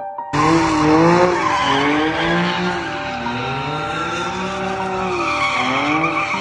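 A car sliding in a burnout or drift, its engine revving up and down again and again over continuous tyre screech from spinning rear wheels. It starts abruptly just after the beginning.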